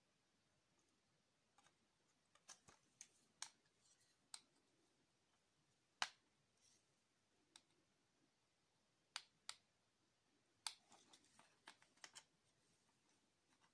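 Faint, scattered clicks and taps of printed circuit boards being handled and knocked together, irregular and in small clusters, the sharpest about six seconds in.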